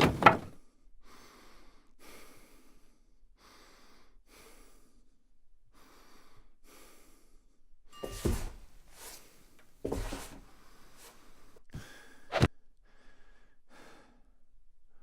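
Isolated drum-kit hits played one at a time with gaps: a loud hit at the start, then a run of soft swishing strokes about every half second, then heavier, deeper hits about eight and ten seconds in and a sharp crack a little after twelve seconds.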